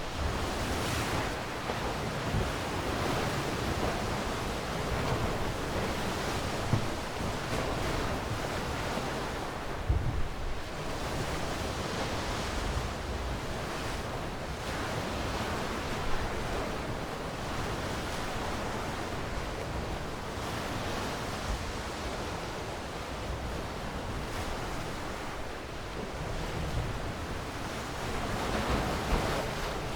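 Sea waves washing on a shore: a steady surf hiss that swells and eases every few seconds. A few brief low thumps stand out, about ten and sixteen seconds in.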